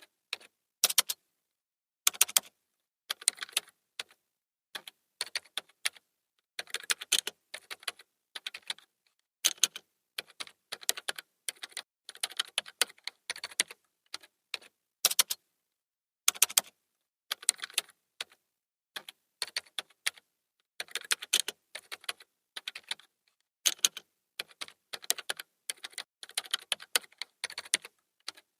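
Typing on a computer keyboard: runs of quick, sharp key clicks in irregular bursts, broken by short pauses.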